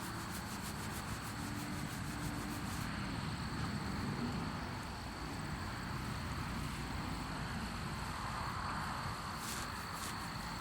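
Outdoor ambience of insects chirping: a thin steady high trill, with fast high ticking that fades out a few seconds in and comes back near the end, over a low steady rumble.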